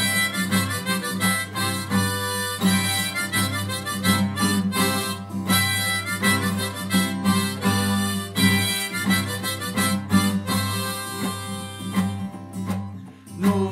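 Harmonica playing the melody of an instrumental break over strummed acoustic guitar in a folk song, in a steady rhythm; the music dips briefly near the end.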